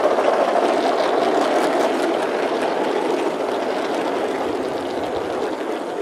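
Gauge 1 model train's coaches rolling past on garden track, a steady rumble and clatter of wheels on rail that fades gradually as the train moves away.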